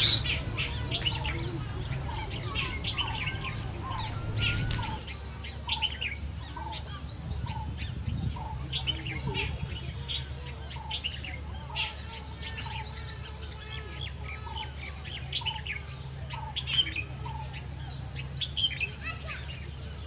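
Birds chirping and calling, many short high chirps over a lower call repeated about twice a second, with a steady low hum underneath.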